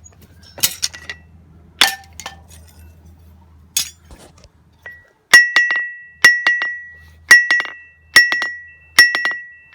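Hammer blows on a 110-pound steel anvil, each leaving a high, bell-like ring. A few scattered strikes come first, then from about halfway a steady beat of blows about once a second, each followed by one or two quick rebound taps.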